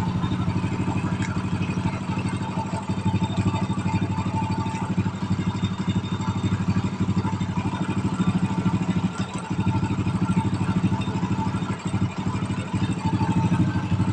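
Honda Supra Fit four-stroke single-cylinder engine in a Honda C70 frame, idling steadily at an even pitch.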